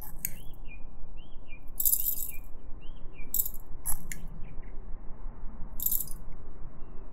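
Metal spoon scooping beeswax pellets in a glass jar and tipping them into a glass beaker: several short, dry rattling scrapes with pauses between.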